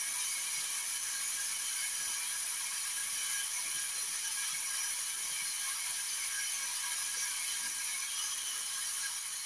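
Pressure cooker under pressure on a gas flame, steam hissing steadily from its valve.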